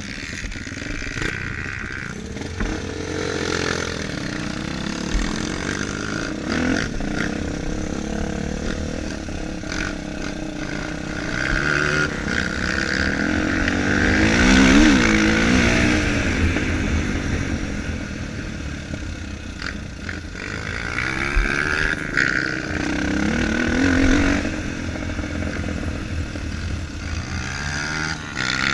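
Four-stroke single-cylinder dirt bike engine revving up and down as it is ridden around a motocross track. It is loudest about halfway through, with a second swell a few seconds before the end.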